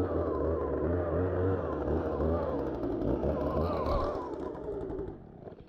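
An engine running steadily, its pitch wavering slightly, then dying away about five seconds in.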